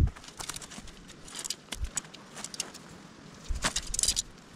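Light clinking and rattling of tent parts being handled while a tent is pitched, with a knock at the start and a denser flurry of clinks about three and a half seconds in.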